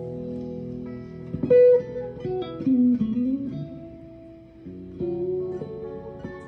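1999 Fender '62 American Vintage Reissue Stratocaster electric guitar with Custom Shop Ancho Poblano single-coil pickups, played through an amp. A chord rings, then a quick run of picked notes includes one that dips in pitch and comes back, and another chord is struck about five seconds in.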